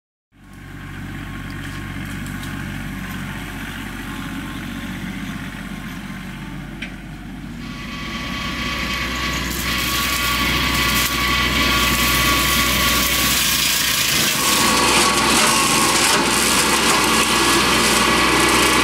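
Tractor engine running with a Baumalight MP348 brush mulcher's rotor spinning. The sound fades in at the start and grows louder from about eight seconds in as the mulcher's carbide teeth chew through brush.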